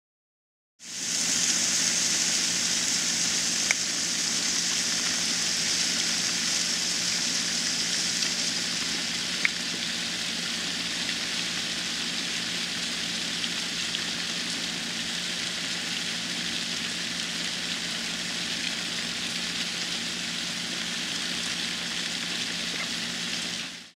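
A tub of about two thousand dubia roaches crawling over one another: a steady, dense rustling hiss. A low hum runs underneath, and two light clicks fall a few seconds apart.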